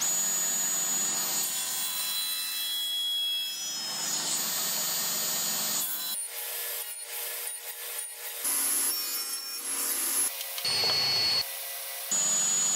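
Table saw running with a steady high motor whine while its blade cuts into the end of an upright wooden leg blank. The sound breaks off and changes abruptly several times in the second half.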